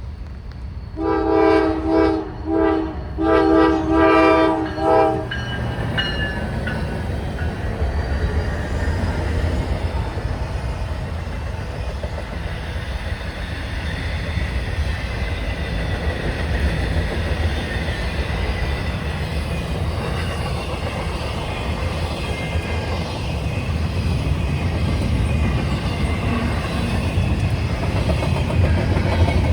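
Norfolk Southern freight locomotive's multi-chime air horn sounding about six blasts in quick succession, then the freight train rolling past with a steady rumble and wheel-on-rail noise that grows louder near the end.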